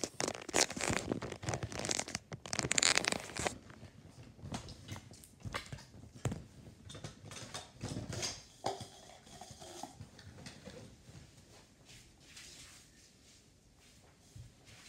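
Handling noise of a phone being moved and set down: rubbing, rustling and knocks, loudest in the first few seconds, then fainter scattered clicks and rustles.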